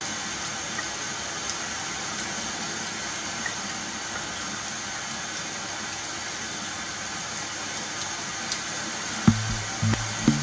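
A kitchen tap runs a thin, steady stream of water into a stainless steel sink. Near the end, a low hum starts, coming and going in short bursts.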